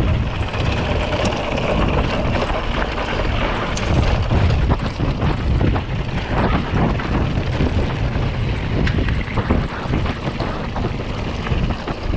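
Wind buffeting the camera microphone over the rattle and knocking of a Specialized Rockhopper 29 mountain bike rolling over a rough dirt trail, with many sharp clicks and knocks throughout.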